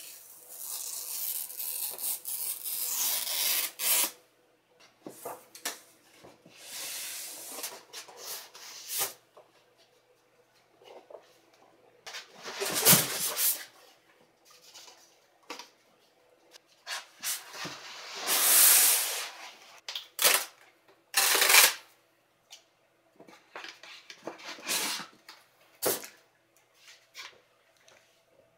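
Cardboard box and its paper and pulp packaging being handled: irregular rustling, sliding and scraping, with a few louder, longer scrapes partway through.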